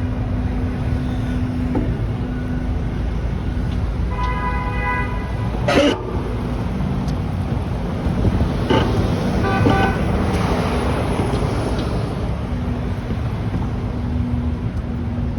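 City street traffic with car horns honking: one horn sounds for about a second and a half about four seconds in, and another sounds briefly near ten seconds. A sharp clank just before six seconds stands out over the steady traffic rumble.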